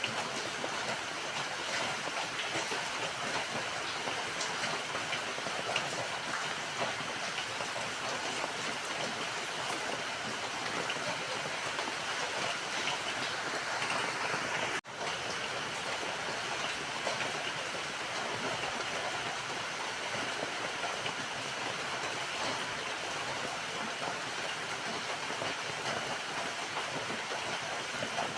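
Steady rain falling, an even hiss with scattered drop ticks, broken by a momentary gap about halfway through.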